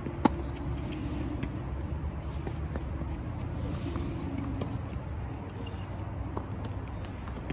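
Tennis rally: a sharp, loud pop of a racquet striking the ball about a quarter second in, followed by a few fainter ball hits and bounces from across the court over a steady low background noise.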